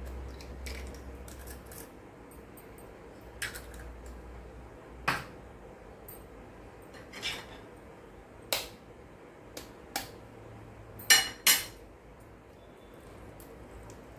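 Eggs knocked against the rim of a glass mixing bowl to crack them, with a metal spoon clinking on the glass: a scattered series of sharp taps and clinks, the two loudest close together near the end.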